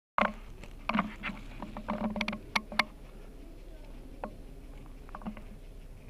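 A quick series of light clicks and knocks in the first three seconds, then two more single knocks near four and five seconds.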